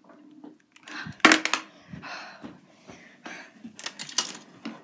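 Handling noise: a sharp click or knock about a second in, then soft rustling and a few more clicks near the end as objects and the camera are moved about.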